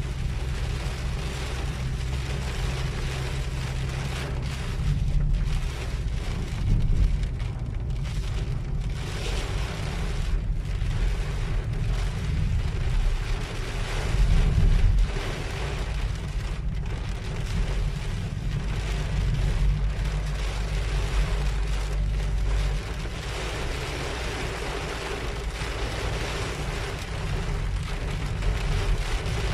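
Heavy rain pelting a moving car's windshield and roof, heard from inside the cabin over the car's steady low road rumble. The rain swells louder twice, about seven and fourteen seconds in.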